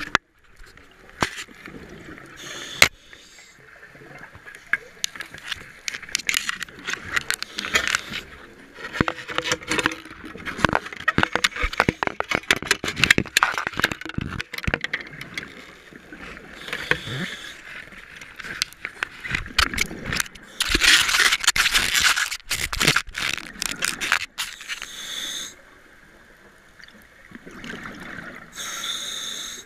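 Underwater sound of scuba diving: many sharp clicks, knocks and scrapes of the camera housing being handled against gear, then a scuba regulator's exhaled bubbles gurgling out in bursts every few seconds.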